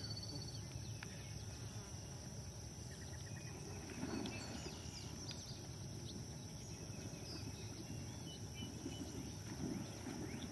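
Steady insect chorus, a continuous high buzz from the pond-side grass, over a low steady rumble of outdoor noise. A couple of faint thumps come about four seconds in and near the end.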